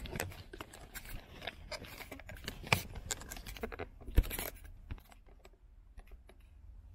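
Handling noise as a handheld camera is moved and set in a new position: scattered clicks, knocks and rustles, with two sharper knocks about three and four seconds in, then quieter near the end.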